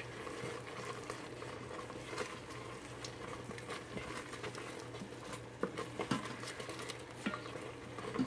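Wooden spatula stirring and scraping thick, bubbling pachadi in a stainless steel Instant Pot inner pot, with many small scattered ticks and soft pops; the paste is starting to stick to the bottom. A low steady hum runs underneath.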